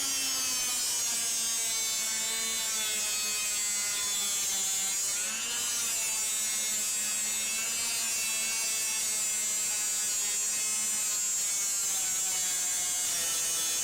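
Straight grinder running steadily with a high motor whine while it strips rust from a car's sheet-metal subframe mounting panel, its pitch sagging briefly about five seconds in as it bears on the metal.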